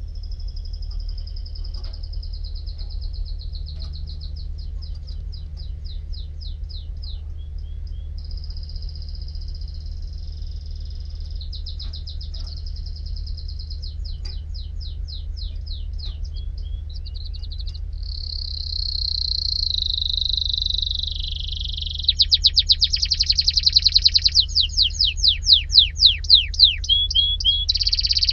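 Domestic canary singing a long unbroken song of rolling trills and rapidly repeated chirps. It grows louder about two-thirds of the way through, ending in fast sweeping trills, over a steady low background hum.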